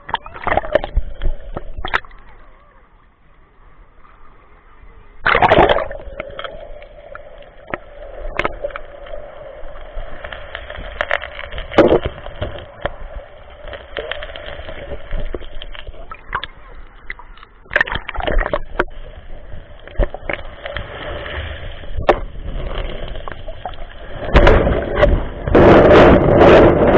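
Muffled underwater recording of sea water sloshing and gurgling around the camera, with scattered knocks and bumps. It grows loud near the end with a stretch of splashing.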